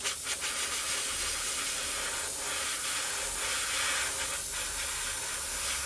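Airbrush spraying black lacquer paint: a steady hiss of air and paint that starts abruptly, with a few brief dips.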